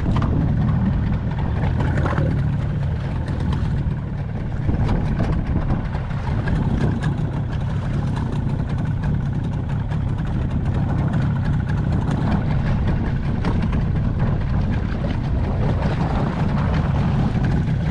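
Steady low rumble of wind buffeting the microphone, with water sloshing around a small boat at sea.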